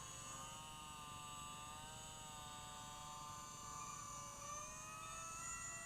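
Electric motor and propeller of a macfree Smart RC Plane SP001 buzzing faintly in flight, the pitch wavering gently up and down.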